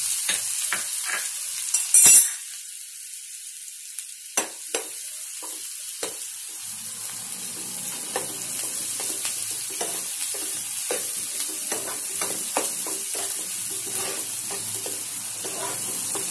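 Chopped onions sizzling in hot oil in a non-stick frying pan, loudest in the first two seconds with a sharp burst about two seconds in, then settling lower. A steel spoon scrapes and taps against the pan as the onions are stirred.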